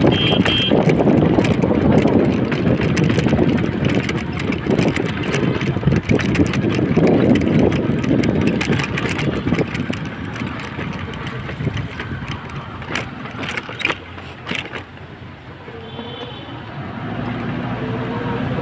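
Traffic and road noise heard from a moving cycle rickshaw: a steady rumble of the ride with many small rattling clicks, louder for the first ten seconds or so and then easing off. A short high tone sounds right at the start and again about sixteen seconds in, and a motor vehicle's engine hum comes in over the last couple of seconds.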